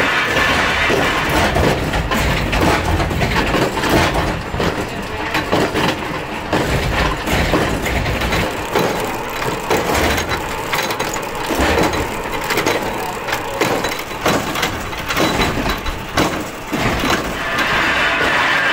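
Plywood factory machinery running, with irregular wooden knocks, cracks and clatter over a continuous mechanical din.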